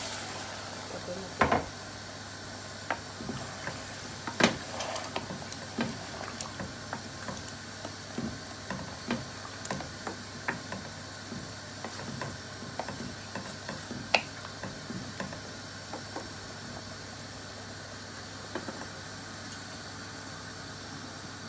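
Wooden spatula stirring potatoes and tomatoes in water in an aluminium pot, knocking and scraping against the pot at irregular intervals, with a few sharper knocks about 1.5, 4.5 and 14 seconds in. A steady faint hiss runs underneath.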